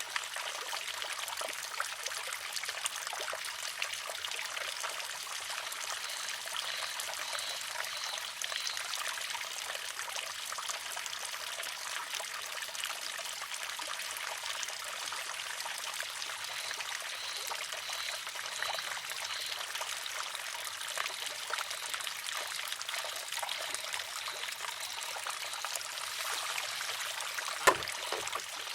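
Water trickling steadily into a wooden shishi-odoshi. Near the end its arm tips over and strikes the stone once with a sharp clack.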